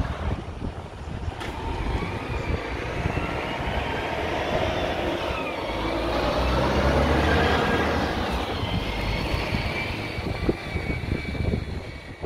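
Distant engine noise of something passing by, a low rumble and rush that swells to a peak past the middle and then fades, with a faint whine gliding up and down.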